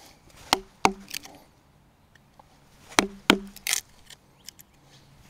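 Mallet striking a chisel cutting a mortise into a green hardwood log, thought to be ironbark: two sharp knocks just over half a second in and two more about three seconds in, with fainter taps and scraping between.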